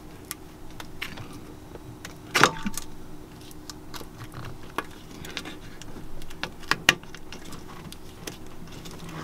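Hand tools clinking and knocking against metal fittings as a marine generator's exhaust elbow and heat-exchanger end cap are worked loose. The clicks are scattered, with a sharp knock and a short ring about two and a half seconds in and another sharp knock near seven seconds, over a faint steady hum.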